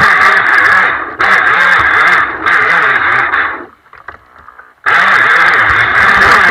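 Onboard sound of a radio-controlled jet boat running up river rapids: the jet drive and rushing water under the hull. The throttle eases off briefly twice, then the sound cuts out for about a second before the boat powers up again.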